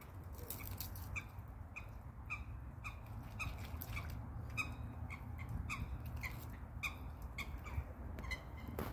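An animal's short, high call repeated about two times a second, each note dropping slightly in pitch, over a steady low rumble.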